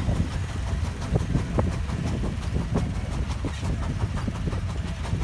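150 HP Case steam traction engine working under load as it pulls a 44-bottom gang plow: a steady low rumble with irregular clanks and knocks.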